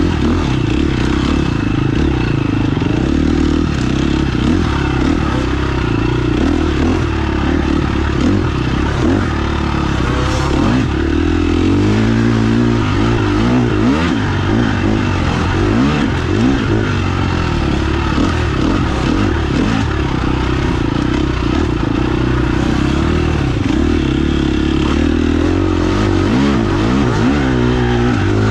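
Off-road motorcycle engine running continuously under way, its revs rising and falling again and again with the throttle.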